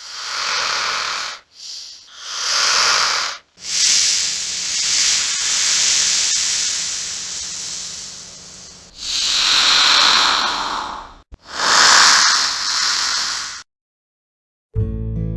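Monster snake hissing sound effect: a series of breathy hisses that swell and fade, one of them drawn out for several seconds, ending suddenly. After a short silence, acoustic guitar music starts near the end.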